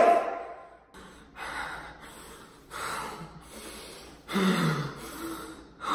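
A man gasping and breathing hard in mock distress: several separate loud breaths about a second apart. One of them, about four and a half seconds in, is voiced and falls in pitch like a groan.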